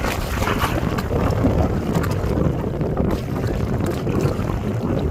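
Wind buffeting the microphone over the sound of lake water, a steady low rumble with a few short clicks scattered through it.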